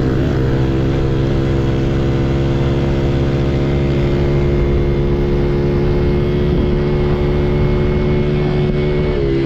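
Yamaha TT-R110 pit bike's 110cc four-stroke single-cylinder engine running under way, held at fairly steady revs, with a brief dip in pitch just after the start.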